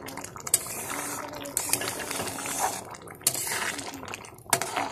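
A metal spoon stirring thick dal in a metal pot, clinking and scraping against the pot several times while the dal bubbles.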